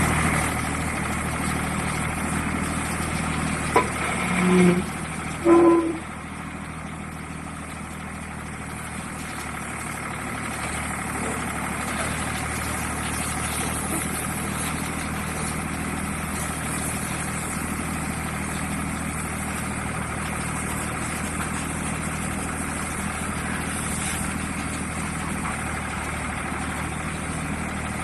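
Mini excavator's engine running steadily. A click and two short tones come a few seconds in.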